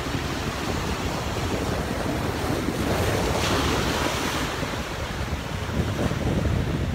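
Sea waves breaking and washing over shoreline rocks, with one louder wash about halfway through. Wind buffets the microphone, adding a low rumble.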